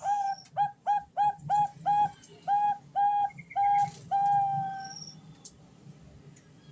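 Female zebra dove (perkutut, Bangkok strain) cooing a series of about ten clear whistled notes. The first notes are short and quick, the later ones longer, ending in one long drawn-out note.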